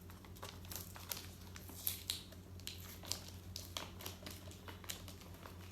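Scotch tape and packaging being picked at and pulled on a taped-up gift box: a scatter of small irregular crackles, clicks and rustles, over a steady low hum.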